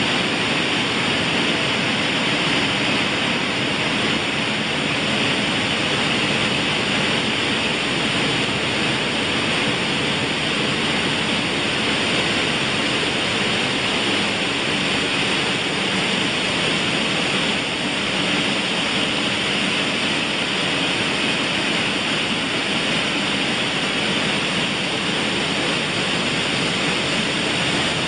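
Buckwheat grading and shelling machinery running: a steady, even rushing noise that does not change.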